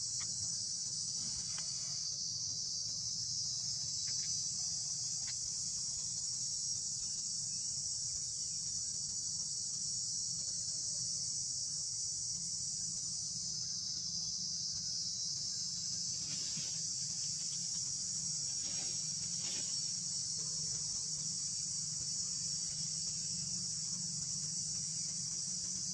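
Steady high-pitched insect chorus that never lets up, over a faint low hum.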